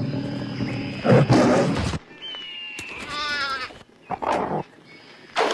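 A wild animal's loud rough roar lasting about two seconds, followed by a higher cry gliding down and a short final burst: a cartoon predator sound effect.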